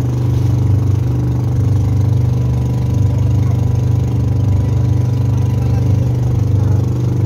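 Engine of a small motorized outrigger boat running steadily under way, a constant low drone with no change in speed.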